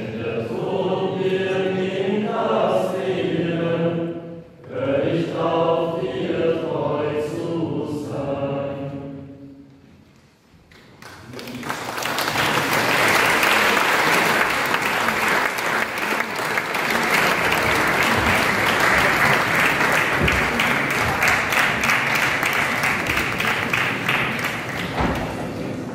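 A choir singing the last phrases of a song, which ends about ten seconds in. After a short pause an audience breaks into sustained applause that lasts to the end.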